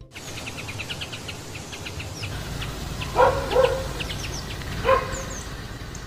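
A dog barking three times, two quick barks about three seconds in and one more near five seconds, over a steady outdoor background with small birds chirping.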